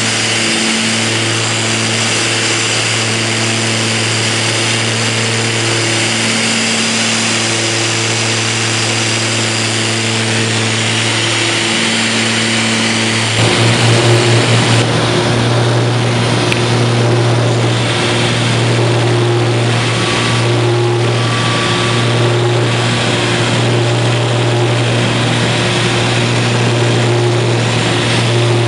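Cabin drone of a Cessna 402's twin piston engines and propellers in flight, a steady low hum with higher tones that throb slowly in and out as the two engines run slightly out of step. About halfway through, the sound shifts abruptly and briefly gets louder, then settles back into a steady drone.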